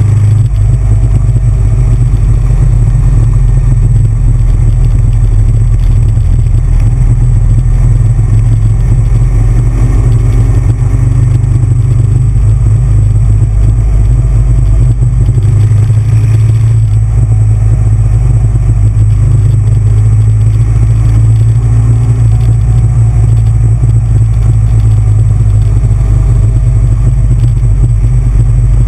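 Big Bear Choppers V-twin chopper running steadily at road speed, heard from a camera mounted on the bike, with heavy wind rumble on the microphone.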